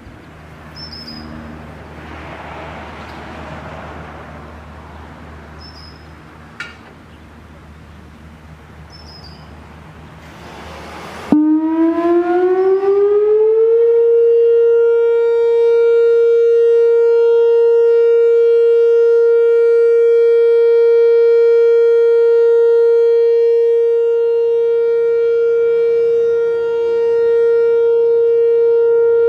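Whelen WPS-4004 electronic outdoor warning siren sounding its steady alert tone. It comes on suddenly about eleven seconds in, glides up in pitch for two or three seconds, then holds one loud, steady tone. Before it, only a low background hum with a few faint chirps.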